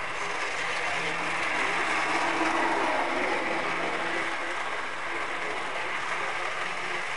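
Model train running on the layout track: a steady rumble of wheels on the rails with a faint electric motor hum.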